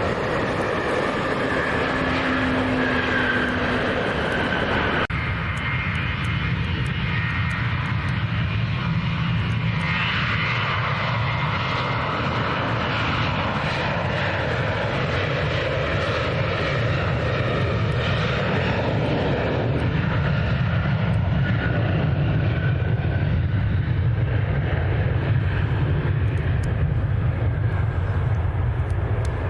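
Airliner engines running loudly and steadily, with a low rumble and a high whine; the sound changes abruptly about five seconds in.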